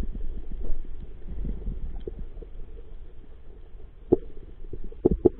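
Underwater sound heard through a diver's camera housing: a low rumble of moving water, with scattered faint clicks and a few sharp knocks, one about four seconds in and two near the end.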